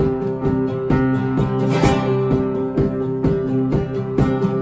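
Instrumental break in a folk-pop song: strummed acoustic guitar keeping a steady rhythm of about two or three strokes a second over held chords.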